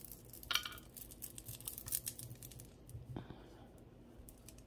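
Faint, rapid small clicks and light clinks of costume jewelry pieces being handled, with a brief ringing clink about half a second in.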